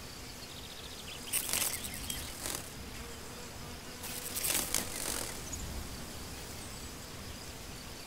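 Meadow insects buzzing over a faint steady outdoor background, in two short bursts: one about a second and a half in, and a longer one around four to five seconds.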